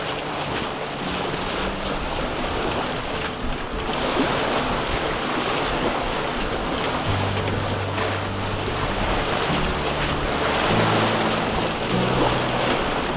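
Wind buffeting the microphone and water rushing along the hull of a sailboat under way under sail. Background music's bass notes sit underneath, clearer in the second half.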